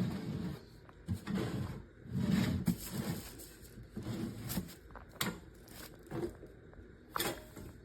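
Irregular handling noises: soft thuds and rustling, with a few sharp clicks or knocks, the clearest one near the end.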